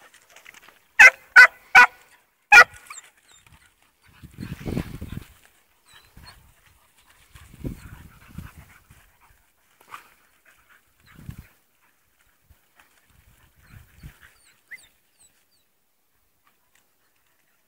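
A dog barks four short, sharp times in the first three seconds. After that, low rumbling noise comes and goes a few times.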